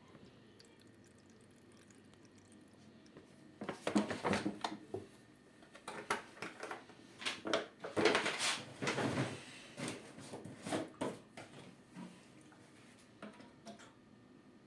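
Ariston 4.5 kg washing machine early in a cotton wash: the drum turns and the water and wet laundry slosh and splash in irregular bursts for several seconds, then the drum stops about three quarters of the way through.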